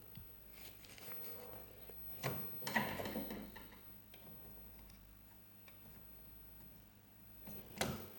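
A few light clicks and taps from handling the parts of a PlayStation 2 disc drive's laser lens assembly: a cluster about two to three seconds in and one more near the end.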